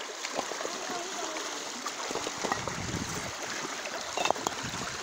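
Fast brown floodwater rushing and splashing against loose bricks and rubble at the broken edge of a road, with a louder splash about four seconds in.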